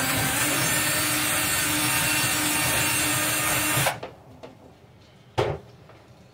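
Electric drill running steadily as it bores a hole in a jug lid to take an airlock hose, cutting off abruptly about four seconds in. A single sharp knock follows about a second and a half later.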